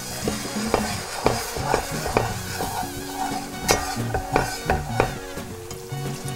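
Wire whisk stirring a thick butter-and-flour roux in an aluminum pot, clicking and scraping against the metal in uneven strokes, with the roux sizzling over the gas flame.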